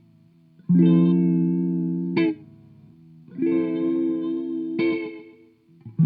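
Electric guitar chords played through an Old Blood Noise Endeavors Black Fountain oil-can delay pedal. Two chords each ring out for about a second and a half and end with a short bright stroke on the strings, with quieter delay repeats trailing between them. A third chord comes in at the very end.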